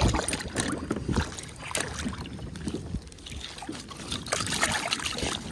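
Water splashing and dripping at the side of a kayak, with scattered sharp knocks and rattles, as a hooked fish is swung over the water and then held in it by a gloved hand to be unhooked and released.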